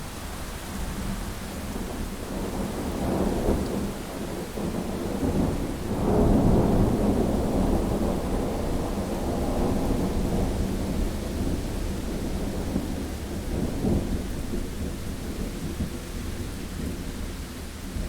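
Thunder rolling over steady rain: a low rumble about three seconds in, then a louder peal from about six seconds in that dies away slowly, and a shorter rumble near the end.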